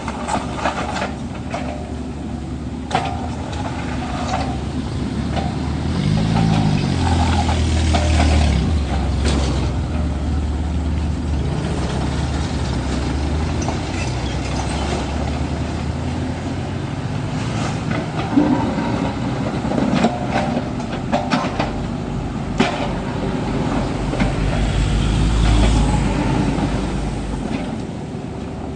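Kubota U50 compact excavator's diesel engine running, speeding up and labouring harder about six seconds in and again near the end, with scattered sharp metal knocks as it works.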